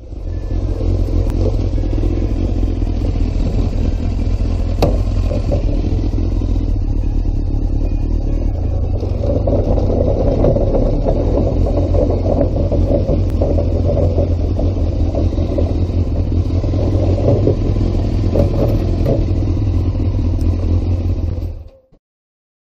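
Yamaha FZR600R's inline-four engine running at low revs, a steady low rumble that grows a little fuller from about ten seconds in. A single sharp click about five seconds in.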